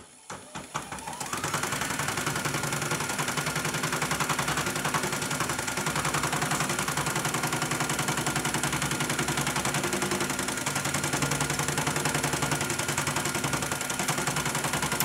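CNY portable embroidery machine stitching a design. Its motor spins up about a second in, then a rapid, even clatter of needle strokes with a steady whine runs until it stops abruptly at the end. This is a test run after a power-supply repair.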